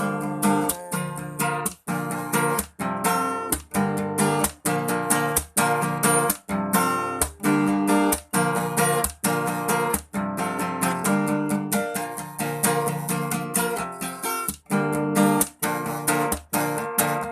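Instrumental guitar break of a pop song, with no singing: acoustic guitar chords strummed in a steady rhythm.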